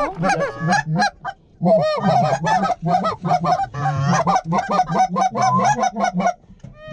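Goose calls blown by hunters in the blind, working an approaching flock of lesser Canada and cackling geese: rapid, overlapping honks and clucks, several notes a second, with a short pause about a second in and the calling falling off near the end.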